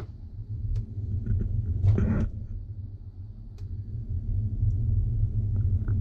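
Low rumble of a handheld camera being moved about inside an open dishwasher, with a few light clicks and a short clatter about two seconds in.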